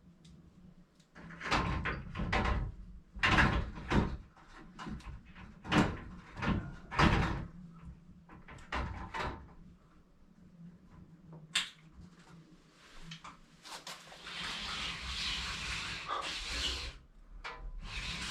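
Glass sliding shower-door panel being handled and hung by its rollers onto the top rail: a string of knocks, clunks and rattles, then a sharp click and a longer scraping, sliding noise near the end.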